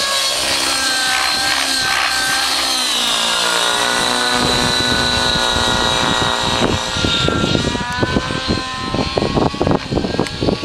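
Two-stroke nitro glow engine and rotor of a Curtis Rave 90 radio-controlled helicopter running at high revs during aerobatics. Its pitch slides down about three seconds in and climbs again a few seconds later. Over the last few seconds, irregular low rumbling thumps grow louder over it.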